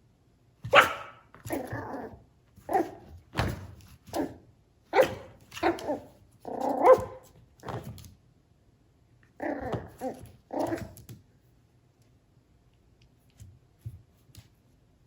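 A Chihuahua–poodle mix puppy barking in short, sharp yaps, about a dozen in a row, stopping about eleven seconds in; a few faint taps follow.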